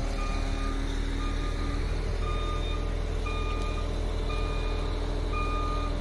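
Backup alarm of a concrete mixer truck reversing, beeping about once a second, over the steady low rumble of diesel truck engines.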